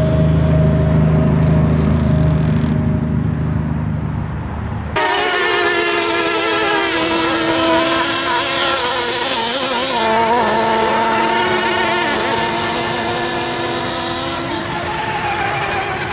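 Engines of radio-controlled racing boats running flat out across the water: a steady low drone that cuts off suddenly about five seconds in to a higher, wavering buzzing whine that slowly fades as the boat runs by.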